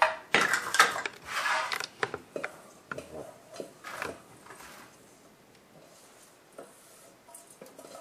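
A utensil scraping and tapping a crumbly almond-meal and butter crust mixture out of a stainless steel mixing bowl into a metal baking pan: a run of short scrapes and knocks that thins out about five seconds in, with a few faint clicks near the end.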